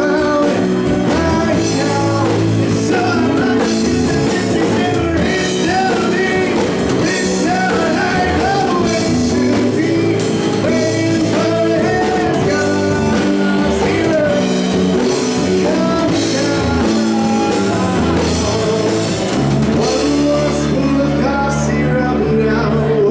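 Live band playing a rock song: a singer over keyboard, electric guitar, bass and drum kit. About twenty seconds in the cymbals drop out, leaving the bass and keys holding under the voice.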